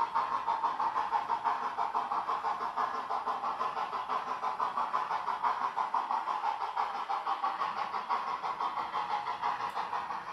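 Steam-exhaust chuffs from the DCC sound decoder of a ROCO HO-scale USATC S160 steam locomotive model, coming through its small onboard loudspeaker. The chuffs keep a steady rhythm of about four a second.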